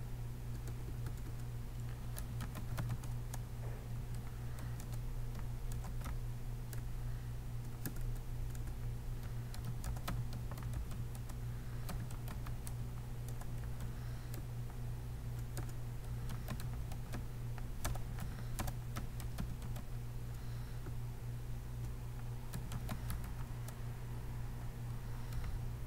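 Computer keyboard keys clicking in irregular runs as text is typed, over a steady low hum.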